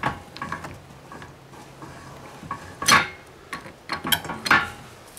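A string of light clicks and clatters, with two louder sharp knocks about three seconds and four and a half seconds in.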